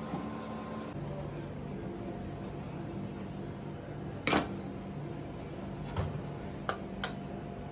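A chef's knife and a wooden cutting board being handled on a kitchen worktop: a few sharp knocks and clicks over a steady low hum. The loudest knock comes about four seconds in.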